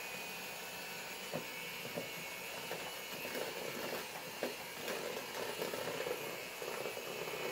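Electric hand mixer running steadily, its beaters churning thick cake batter, with a few light knocks along the way.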